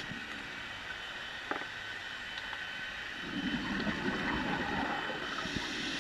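Underwater ambience picked up by a submerged camera: a steady rush of water noise with a faint steady whine and a few sharp clicks. A rougher, lower rumble joins about three seconds in.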